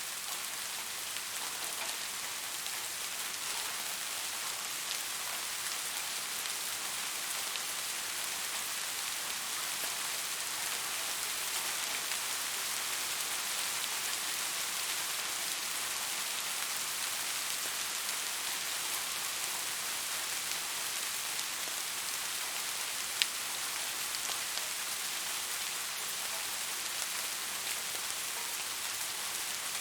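Steady rain with individual drops ticking through a soft high hiss. One sharp, louder drop lands about three-quarters of the way through.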